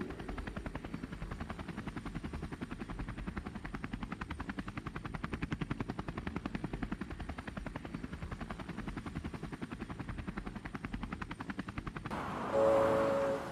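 Helicopter rotor chopping steadily in a rapid, even pulse. Near the end it cuts off abruptly to a louder sound with a brief pitched tone.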